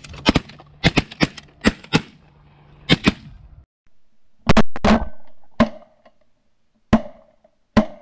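Volley of shotgun shots from several hunters firing at geese overhead: a quick run of overlapping blasts in the first three seconds, then more single shots about a second apart, each with a short ringing tail.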